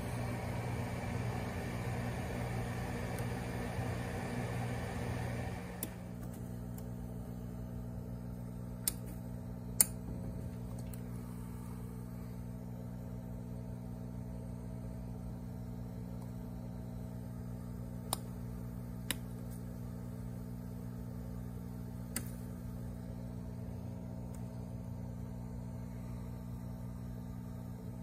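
Steady low hum of running aquarium equipment, with a rushing hiss over it that cuts off about six seconds in. After that, a few sharp single clicks, the loudest near ten seconds in.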